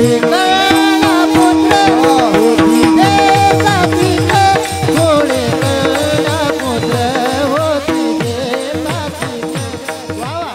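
Warkari devotional singing: a male voice singing over clashing taal hand cymbals and a drum beating a fast, dense rhythm, growing softer toward the end.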